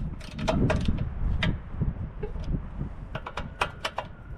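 Small metal clinks and clicks of hand tools and bolts being handled on a metal workbench, with a quick run of clicks about three seconds in, over a low rumble.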